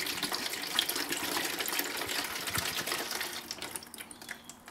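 Engine coolant pouring from a disconnected radiator hose into a cut-open plastic bottle, a steady splashing trickle that dies away near the end.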